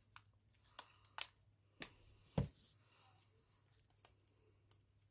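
Hands handling a spool of ribbon: a few light clicks and taps, with one louder knock about two and a half seconds in.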